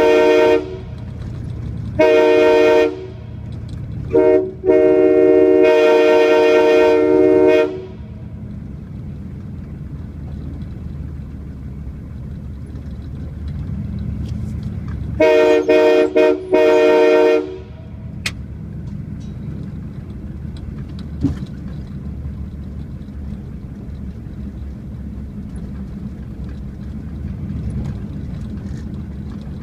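Locomotive chime air horn sounding a chord in several blasts: a short one, a one-second one, a quick toot and then a blast of about three seconds. After a long gap comes a burst of three or four choppy toots about halfway through. A low steady rumble runs underneath and fills the gaps.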